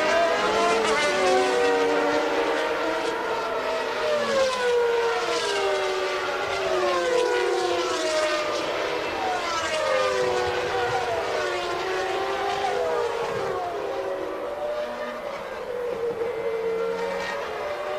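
Several 1992 Formula One race cars' engines running at high revs, their pitch climbing and dropping through gear changes, with more than one car heard at once.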